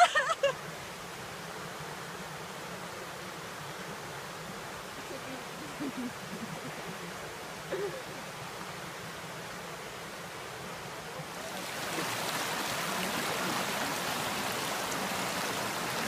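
Shallow stream running over rocks, a steady rush of water that grows louder about twelve seconds in.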